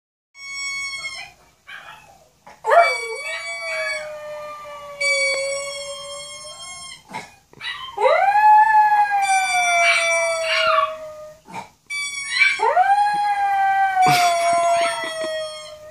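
Maltese dog howling, three long howls, each swooping up at the start and then slowly falling in pitch.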